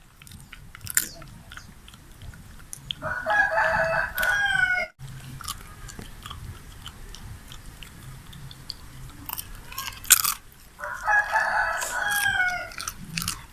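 A rooster crowing twice, each crow about two seconds long and ending on a falling note, with crunchy chewing and biting clicks in between.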